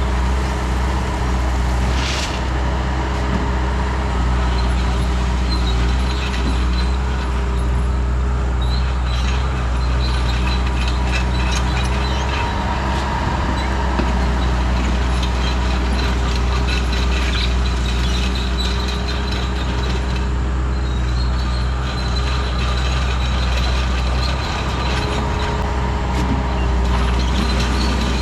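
2001 skid steer's engine running steadily under work, with scattered light clanks and rattles from the machine and bucket.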